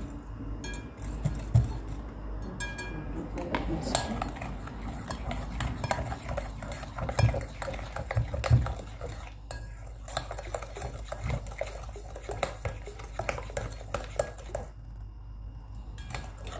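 Metal spoon stirring a thin liquid mixture in a porcelain bowl, clinking and scraping against the bowl's sides with many quick knocks, pausing briefly near the end.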